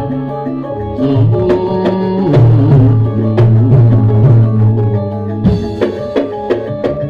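Campursari music with sharp drum strikes over held melody notes and a steady bass.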